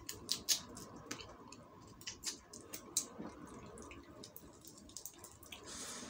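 Close-up wet chewing and lip-smacking of fried quail eaten with the fingers: a string of sharp, irregular mouth clicks and smacks.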